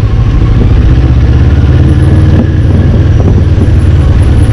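A CFMoto 400NK motorcycle riding on a dirt road, heard from a camera on the bike: the engine runs under a heavy, steady low rumble of wind buffeting the microphone.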